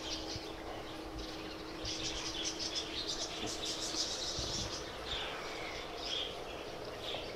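Songbirds chirping in quick twittering runs, strongest in the middle, with separate chirps later. A faint steady hum underneath fades out about five seconds in.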